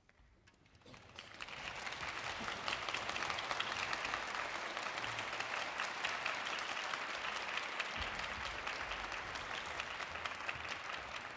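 Concert-hall audience applauding, beginning about a second in and building to full, steady clapping within another second.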